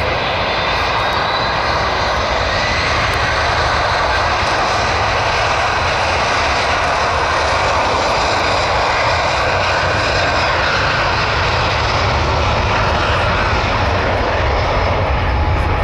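Twin jet engines of a Lufthansa Boeing 737 at takeoff thrust during the takeoff roll: a steady, loud jet roar.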